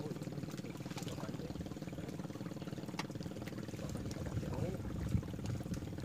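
Choppy, wind-driven reservoir water lapping and sloshing against a floating fishing platform, over a steady low motor hum.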